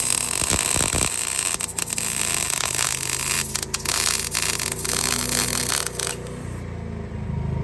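Arc welding on steel: a continuous crackling, sizzling arc as a bead is run, cutting off about six seconds in. A steady low hum runs underneath. The pass is judged a little too fast in travel speed.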